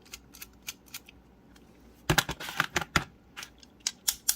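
Small hard clicks and taps of a folding knife's screws and metal parts being handled during disassembly, with a quick run of clattering clicks about two seconds in.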